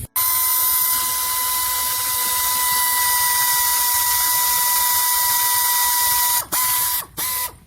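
High-speed power tool spinning with a steady whine over a hiss for about six seconds, then three short bursts of the trigger near the end.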